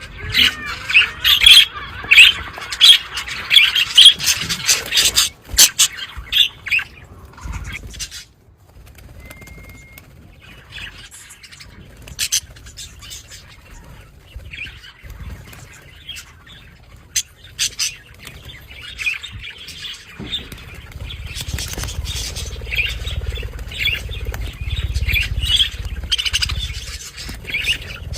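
A budgerigar flock chattering and chirping, dense for the first few seconds, thinning to scattered chirps and clicks in the middle, then building up again with a low rumble underneath.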